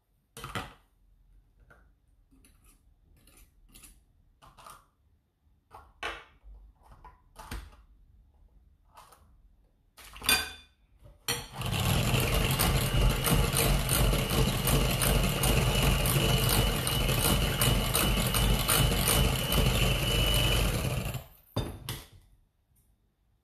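A spoon clinking against a glass bowl while stirring cake batter. About eleven seconds in, an electric hand mixer starts and runs steadily with a high whine, its beaters whirring in the batter, then stops near the end.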